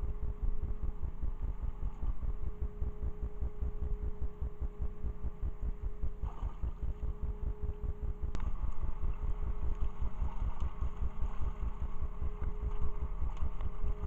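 Small fishing boat's engine idling, a low regular throbbing with a steady hum above it, while a fyke net is hauled up beside the boat. Water splashes and drips from the net in the second half, with a sharp knock about eight seconds in.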